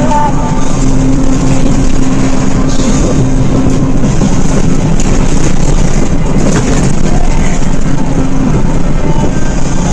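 Intercity coach at speed, heard from inside the cabin: a steady, loud engine drone with road and wind noise.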